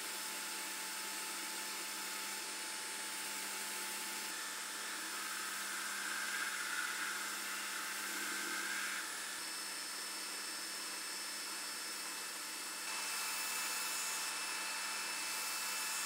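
Bench belt sander running steadily while a yew wood knife-handle blank is pressed against the belt and sanded to shape. The level shifts up and down a little a couple of times.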